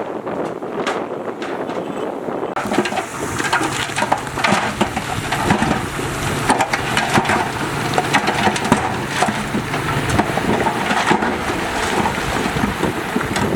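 Heavy earthmoving machinery working: a diesel engine running under a dense crunching and crackling of soil and rock. The sound grows fuller about two and a half seconds in.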